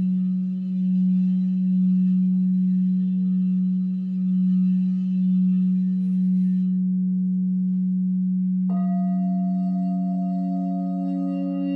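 Singing bowls ringing: a loud, low, sustained bowl tone that swells and fades slowly. About three-quarters of the way in, a second bowl is struck and its higher ringing tones join the first.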